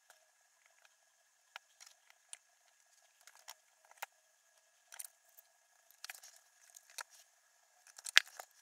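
Small scattered clicks and taps of metal hand tools and wires being handled on a workbench, a few a second at most, with the sharpest click near the end, over a faint steady high hum.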